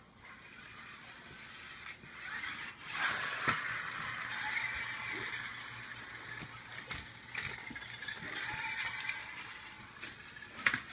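Toy car's gears and wheels whirring as it runs across a tile floor, the whir building about two seconds in and fading near the end, with a few clicks at the close.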